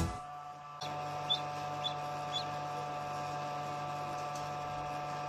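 Steady electric hum of an egg incubator, with three short high peeps from a newly hatched Cayuga duckling about half a second apart, starting just over a second in.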